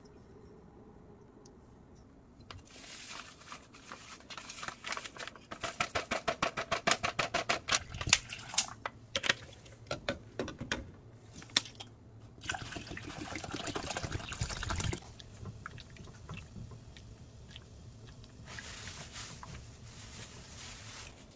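Kitchen food preparation: a quick, even run of knife chops on a cutting board, then a couple of seconds of pouring liquid.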